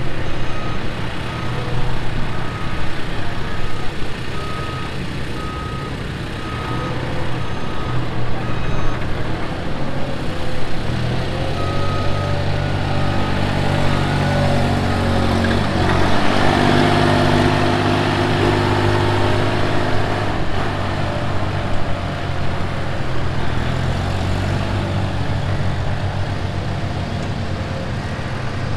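Schäffer 2428 mini articulated loader's diesel engine running as the machine drives and works its bucket. The engine gets louder and higher in pitch for several seconds in the middle. A reversing beeper sounds repeatedly in the first nine seconds or so.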